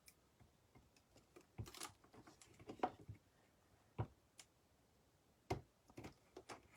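Faint, scattered snips and clicks of scissors cutting a rub-on transfer sheet, about half a dozen separate short clicks.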